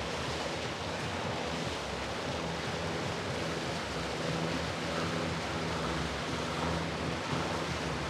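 Small cabin motor launch cruising past, its motor a steady low hum under the rush of water from its bow wave and wake.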